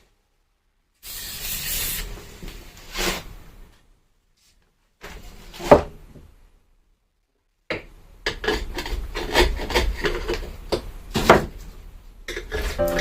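Scraping and rubbing strokes as old, thick window sealant is worked off a boat window, in short passages broken by dead silence, with a sharp knock near the middle and many quick strokes in the last five seconds.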